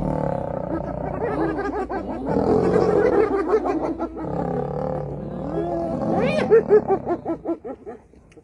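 A group of spotted hyenas calling over one another in a scuffle with lions: overlapping whoops, squeals and giggles, with deeper growling underneath. About six seconds in come a run of short squeals that rise and fall, and the calling fades just before the end.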